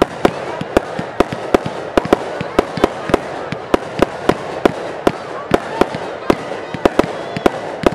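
Firework cake firing shot after shot in quick succession: sharp reports at about four a second, with a steady hiss between them.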